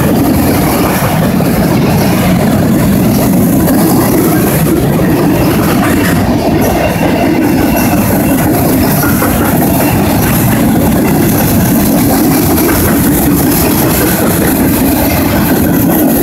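Covered hopper cars of a freight grain train rolling past close by: a loud, steady rumble of steel wheels on rail.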